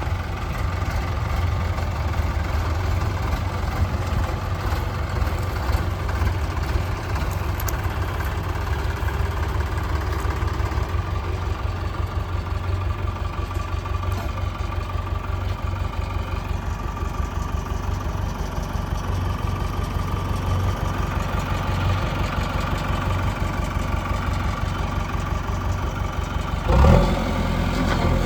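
Diesel engines of a JCB 3DX backhoe loader and a tractor running steadily at low speed, with a brief louder burst near the end.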